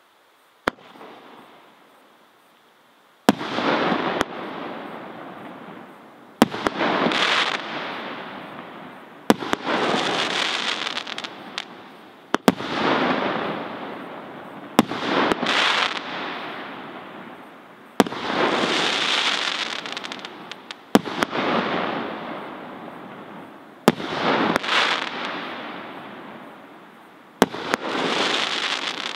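Hirt & Co 'Orion' category F3 firework cake firing shell after shell, roughly one every three seconds, the first faint and the rest loud. Each shot is a sharp report, often followed by a second crack as the shell bursts. A dense crackle of stars then fades over two to three seconds.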